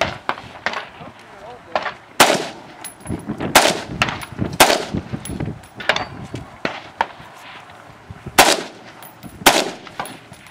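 Semi-automatic AR-style rifle fired in a string of single shots at uneven intervals, mostly about a second apart. A few shots are much louder than the rest.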